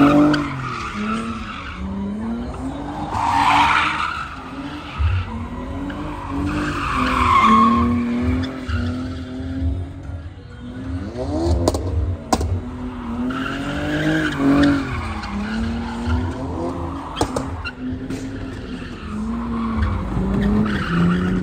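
Cars drifting: engines revving up and falling back again and again, with tyre squeal over them. Two sharp pops come about twelve seconds in.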